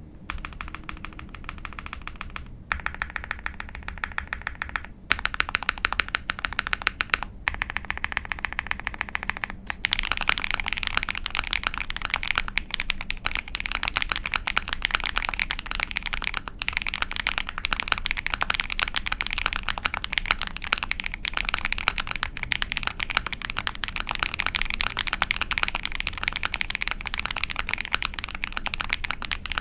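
Typing on an Ai03 Vega mechanical keyboard with a POM plate, lubed Techno Violet linear switches and GMK keycaps: a run of keystroke clacks. The clicking is lighter and broken by short pauses for about the first ten seconds, then becomes louder and continuous fast typing.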